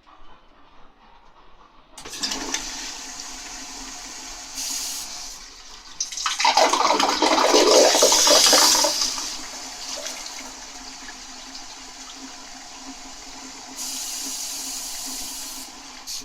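TOTO Neorest D1 tankless toilet being flushed. Water starts rushing about two seconds in, then it gets loud for about three seconds as the bowl is sucked empty with a gurgling slurp, which the owner takes for an abnormal noise and a sign the toilet is broken. It settles into a steadier refilling hiss.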